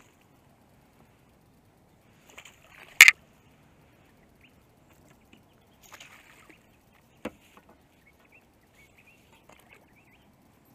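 A hooked flathead splashing at the surface beside a kayak, with short bursts of splashing and a few small clicks of handled fishing gear. A single sharp knock about three seconds in is the loudest sound, and a lighter knock follows a few seconds later.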